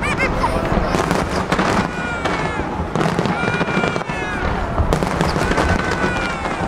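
Aerial fireworks shells bursting in quick succession, a dense run of bangs and crackles, with crowd voices underneath.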